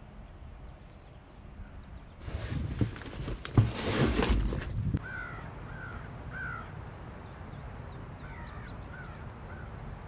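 A loud burst of rustling, scuffing noise from about two seconds in to about five seconds. After it, a crow caws in two short series of calls.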